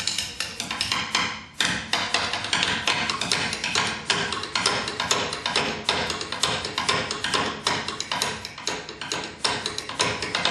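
A wooden chair played as a percussion instrument, struck by hand in a rapid, uneven stream of sharp wooden knocks that starts abruptly.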